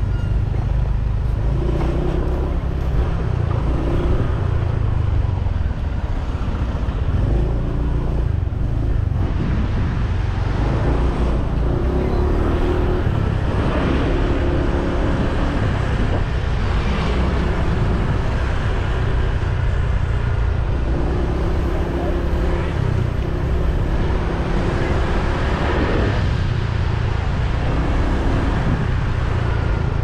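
Steady low rumble of a motorbike riding through street traffic, with other vehicles and scooters passing.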